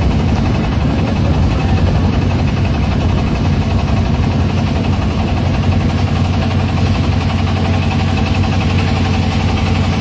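Motor boat engine running steadily with a strong low hum, over a steady hiss of water rushing past the hull.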